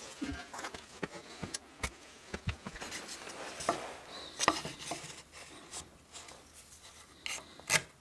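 Hand work on wood: scattered light knocks and clicks with a few short scraping rubs, as pieces of wood and tools are handled and worked.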